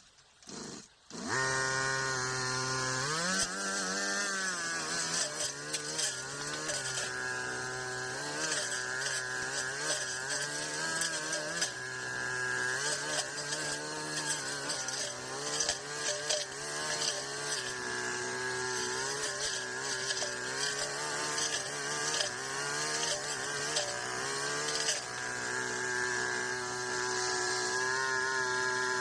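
Petrol brush cutter engine comes in abruptly about a second in and revs up, then runs at high speed while cutting grass, its pitch dipping and recovering again and again under the load.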